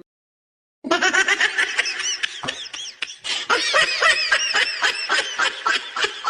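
High-pitched giggling laughter in quick, rapid bursts, starting after about a second of silence.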